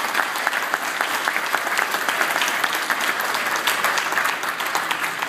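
Audience applauding in a large hall: dense, steady clapping from many people.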